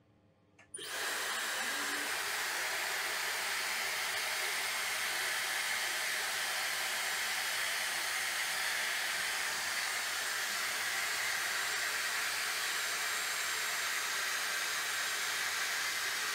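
Hair dryer switched on about a second in, then blowing steadily with an even hiss.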